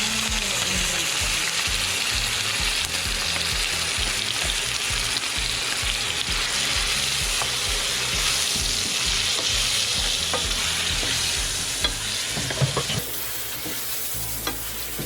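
Curry masala paste frying in hot oil in a pan, sizzling steadily while it is stirred, with a few utensil clicks against the pan about twelve seconds in. This is the 'chunkay' stage of a Guyanese curry, where the spice paste is cooked down before the fish goes in.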